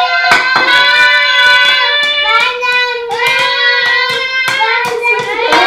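Two young children singing and squealing with delight in long, high, held cries, over frequent sharp knocks.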